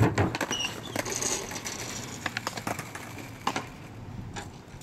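Skateboard hitting a wooden kicker ramp with a loud thud at the very start, followed by scattered short clicks and knocks.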